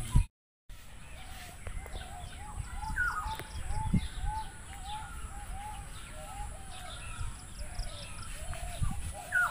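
Birds calling in a village soundscape: a run of short, arched call notes repeating about twice a second, with higher chirps over them and a steady high hiss behind. The sound cuts out briefly just after the start.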